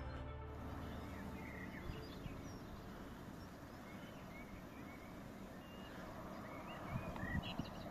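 Faint birdsong: scattered short chirps from songbirds over a soft, steady outdoor background.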